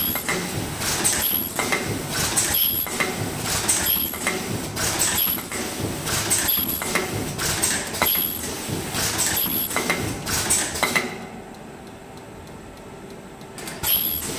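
Automatic ultrasonic ear-loop mask welding machine cycling: a rhythmic run of clicks and clacks, each cycle with a short high squeal, roughly every three quarters of a second. It pauses for about three seconds near the end, leaving a faint hum, then starts cycling again.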